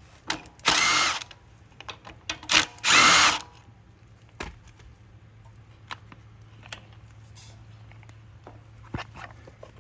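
Power drill/driver whirring in two short bursts about two seconds apart, backing out the two 5/16 bolts that hold the carburetor float bowl on a Briggs & Stratton small engine, followed by light clicks of small metal parts being handled.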